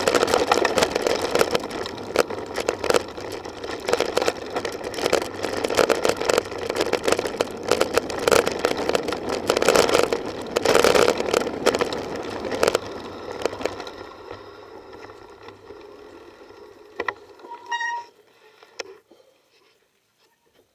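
Mountain bike ridden fast over a rough dirt single track, recorded on the bike or rider: a dense, loud rattling and knocking over the bumpy ground, fading over the last several seconds as the bike slows to a stop. A brief high beep sounds near the end.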